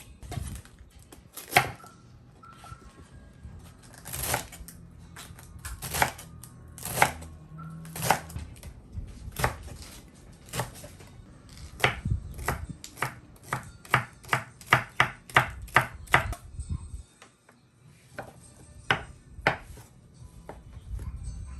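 Knife chopping on a cutting board in separate strokes, slow at first, then quicker at about three strokes a second in the middle, with a short pause near the end.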